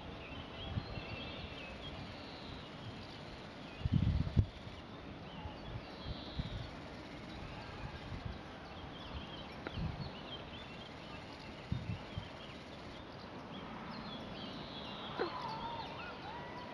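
Open-air countryside ambience: wind buffets the microphone in irregular low gusts, the strongest about four seconds in, while small birds chirp faintly in the background.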